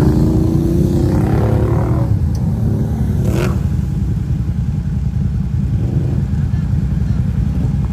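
Off-road quad and side-by-side engines running in a steady low rumble.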